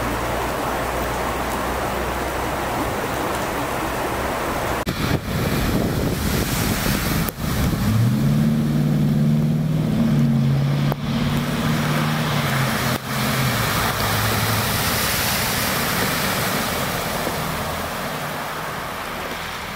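Heavy rain pouring steadily onto a flooded street. From about eight seconds in to about fourteen, a car's low engine hum rises over the rain as it drives through the floodwater.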